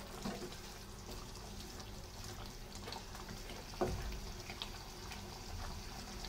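Chicken simmering in a thin gravy in a nonstick pan, with a wooden spatula stirring and scraping through it. One sharper knock of the spatula against the pan about four seconds in.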